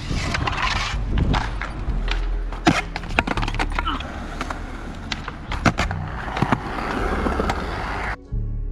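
Skateboard wheels rolling over concrete, with several sharp clacks from the board. Near the end it cuts suddenly to soft music.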